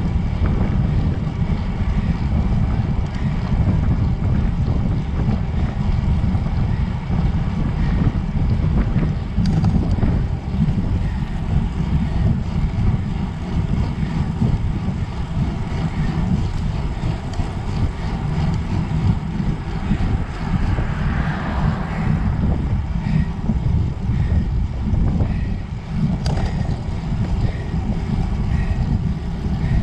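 Wind buffeting the microphone: a loud, steady low rumble that does not let up.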